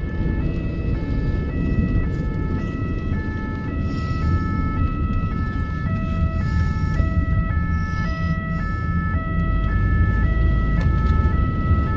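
Ambulance two-tone siren alternating between a high and a low note about twice a second, heard from inside the cab over the low rumble of the engine and road.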